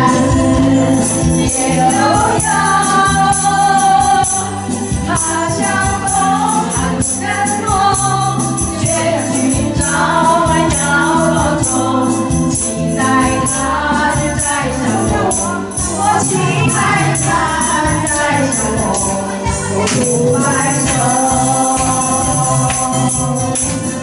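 Several women singing together into microphones over a recorded backing track.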